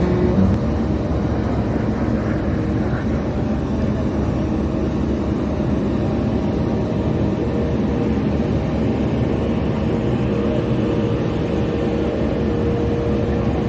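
Steady mechanical drone with a few faint steady hums underneath, like engines or machinery running. The displayed engine itself is not running.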